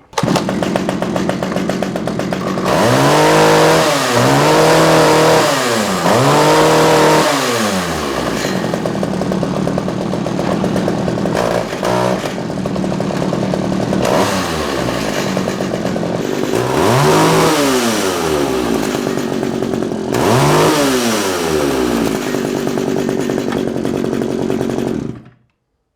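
Vintage Pioneer Farmsaw II two-stroke chainsaw running, revved up and back down three times in quick succession, then twice more after a stretch of steady running. The engine cuts off suddenly near the end.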